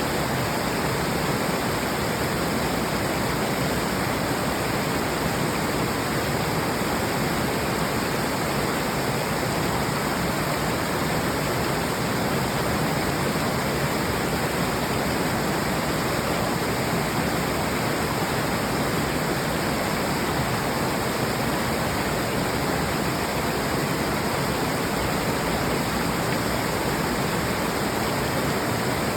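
Waterfall with water rushing in a steady, unbroken wash of noise.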